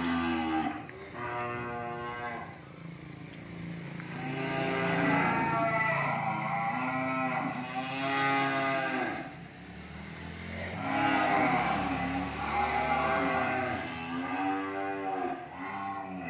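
Cattle mooing over and over in the box of a livestock truck during loading: about eight long calls, each rising then falling in pitch.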